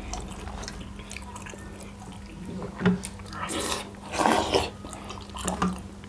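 Close-up eating sounds: wet chewing and mouth noises of a person eating millet dhido with chicken curry, in a few short bursts in the second half, over a faint steady hum.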